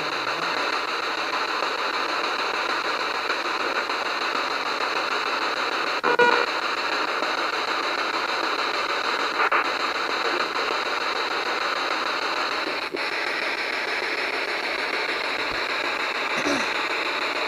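Steady rushing hiss, with one short louder sound about six seconds in.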